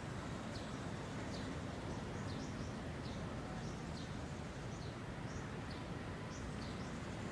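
A small bird chirping over and over, short high calls about once or twice a second, over a steady low rumble.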